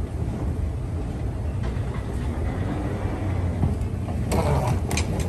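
Escalator running with a steady low rumble, with a burst of rustling and a couple of sharp clicks near the end.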